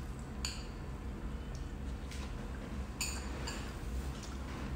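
A metal spoon clinking a few times against a ceramic bowl while scooping soup, in short separate taps.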